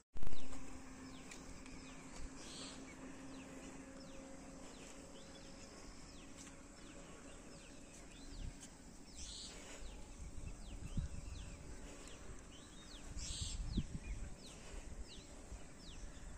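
Birds chirping repeatedly in short, quick falling notes over a steady outdoor background. A short loud pop comes right at the start.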